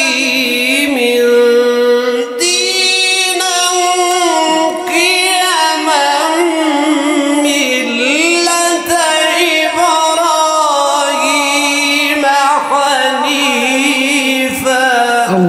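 Quran recitation by a male reciter in the melodic mujawwad style. One high voice holds long notes and moves between pitches in steps, with quick quavering ornaments on the held notes.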